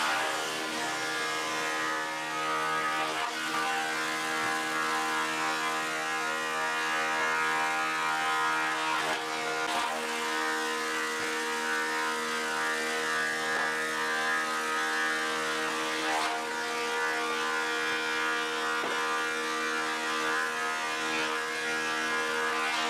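Delta DC-580 20-inch thickness planer running, its knife cutterhead planing rough-sawn red oak boards. It makes a steady, loud machine whine with a few faint clicks.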